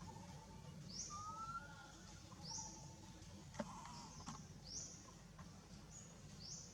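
Faint birds chirping: a short high chirp repeats every second or two, with a thin rising whistle about a second in. A single sharp click comes about halfway through.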